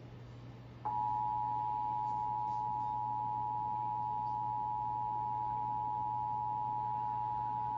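Emergency Alert System attention signal from a DASDEC II encoder: the steady two-tone alert (853 and 960 Hz together) starts suddenly about a second in and holds unbroken, announcing a severe thunderstorm warning. A faint low hum sits underneath.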